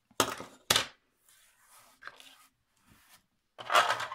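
Paper envelope blank being handled on a plastic score board: two sharp taps about half a second apart, faint rustling, then a louder brushing of the paper near the end as it is laid down on the board.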